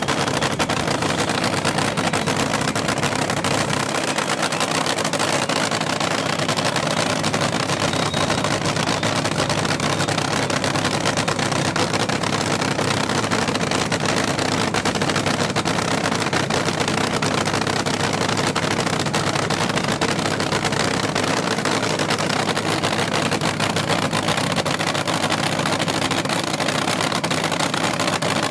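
Supercharged nitro-burning engine of an AA/FA fuel altered dragster running steadily in the pits at a cackle: a constant loud, crackling engine sound that neither revs up nor dies away.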